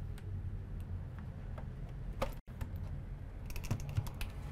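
Scattered light clicks and plastic rattles of power-supply cables and connectors being handled and plugged in on a workbench, over a steady low hum. The clicks come thickest near the end, and the sound cuts out completely for a moment just past halfway.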